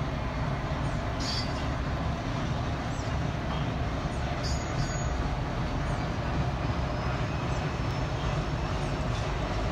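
Diesel freight locomotives pulling a train slowly past at a distance, heard as a steady low rumble.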